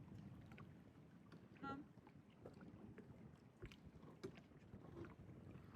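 Near silence: faint low background rumble with a few small clicks, and one short pitched sound a little under two seconds in.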